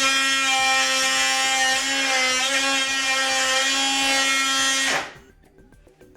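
Ryobi 18V ONE+ oscillating multi-tool running as it cuts through painted wood trim: a steady, loud, high buzz that wavers slightly in pitch under load, then stops abruptly about five seconds in. The blade is gumming up with paint melted by the cutting heat.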